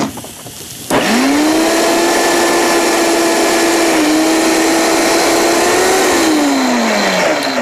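Countertop blender motor starting about a second in, quickly spinning up to a steady high-speed whine as it blends a thick chipotle, honey, cilantro and lime glaze. About six seconds in the pitch falls and the motor winds down as the circuit breaker trips and cuts its power.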